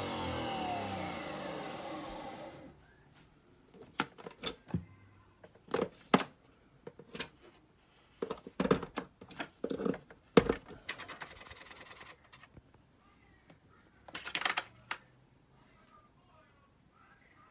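Nespresso Vertuo Next coffee machine's motor running, then falling in pitch and stopping within the first few seconds. Then a scattering of sharp clicks and knocks.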